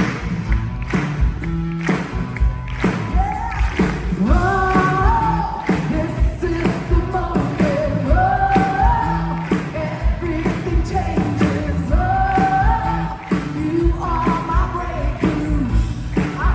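Contemporary praise-and-worship music: singing over a steady drum beat and bass. The sung phrases come in about three seconds in and recur roughly every four seconds.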